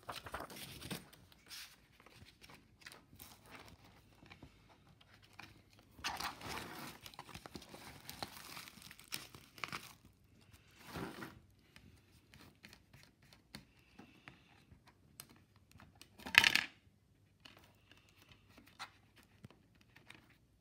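Rustling and crinkling of a paper insert and plastic DVD cases being handled, with scattered light clicks. One louder, sharp clack comes about three-quarters of the way through.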